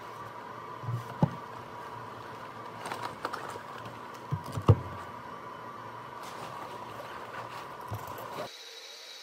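Study things being set down on a wooden desk: a few knocks as a laptop sleeve, books and a tablet are stacked, the sharpest about halfway through, with rustling of a backpack, over a steady room hum.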